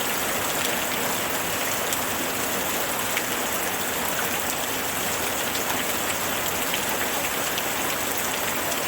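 Steady rainfall: an even hiss of rain with scattered individual drops ticking on a surface.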